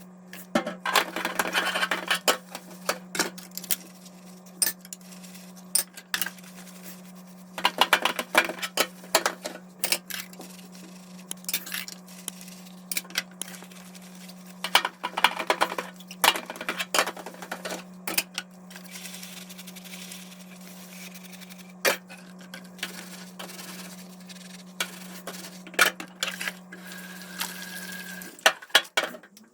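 Dishes and cutlery clinking and knocking in a kitchen sink, with stretches of sponge scrubbing, over a steady low hum that stops near the end.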